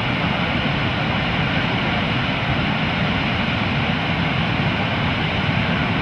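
Whitewater rapids of the Siang River rushing steadily.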